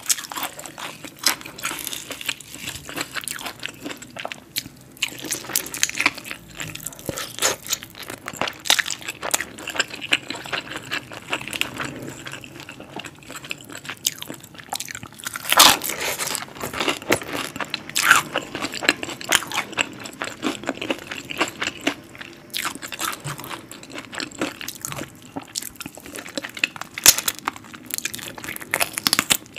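Close-miked eating of crispy fried chicken: repeated crunchy bites into the breaded skin with chewing between, the loudest crunch about halfway through.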